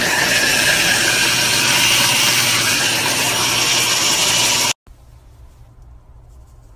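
Ninja food chopper's motor running on high, its blades whirring through chickpeas being blended into hummus. A loud steady whir that cuts off suddenly about five seconds in.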